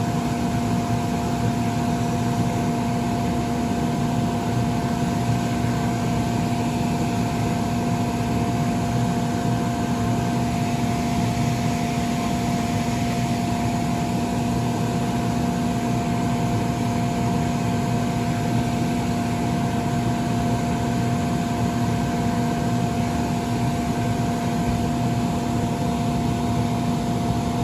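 Electric inflation blower of a bounce house running steadily, a constant motor drone with a steady hum, keeping the inflatable pressurised during patching.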